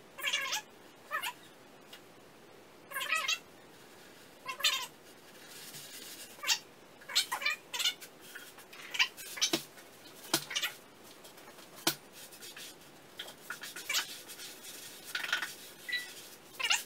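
Automotive carpet fabric being laid, pulled and pressed onto a wooden box coated in tacky spray adhesive: a string of short peeling and rubbing noises at irregular intervals, as the fabric sticks to the glue and is lifted to adjust it.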